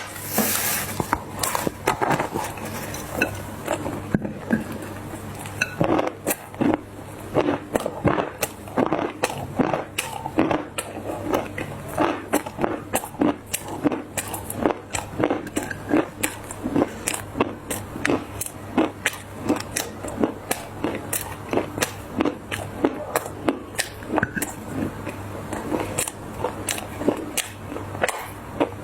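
Dried clay being crushed and crumbled, giving a dense run of irregular crunches and crackles, several a second.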